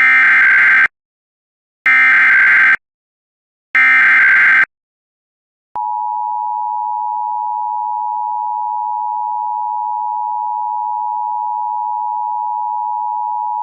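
Emergency Alert System tones. Three short screeching SAME digital header bursts, about two seconds apart, mark the start of an EAS alert. About six seconds in comes the steady two-tone attention signal (853 and 960 Hz together), which holds for about eight seconds before the voice message.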